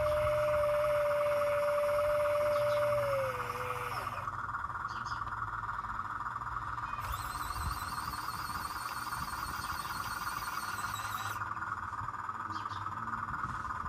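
Whine of small electric motors in radio-controlled construction models: one steady tone drops in pitch and stops about four seconds in, while a higher steady whine runs on, with a warbling high-pitched whine joining in for a few seconds in the middle.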